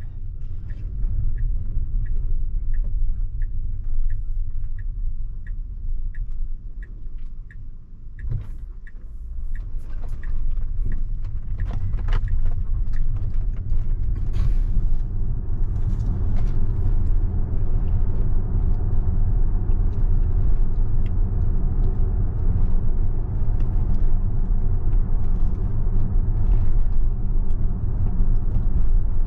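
Tesla electric car's cabin: tyre and road rumble on wet pavement, with no engine note. The turn-signal indicator ticks evenly, about two to three ticks a second, for roughly the first eight seconds. A knock follows, and the road noise then grows louder as the car picks up speed.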